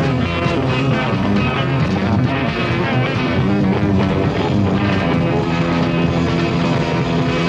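Rock music with guitar and no singing.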